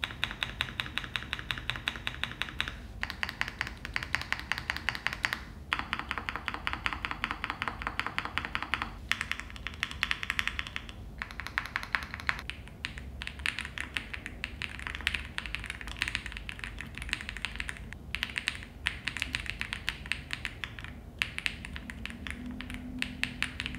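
Fast typing on an AM AFA R2 Alice-layout mechanical keyboard fitted with Icy Silver linear switches, a dense run of quick keystrokes in several stretches broken by brief pauses. Its typing sound is soft and rounded, a "sogak-sogak" rather than a clacky "ttogak-ttogak".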